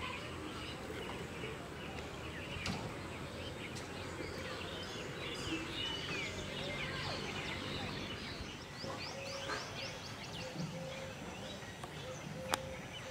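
Outdoor rural ambience of many small birds chirping and calling over a steady background hiss, with a run of short repeated lower call notes in the second half. A single sharp click sounds near the end.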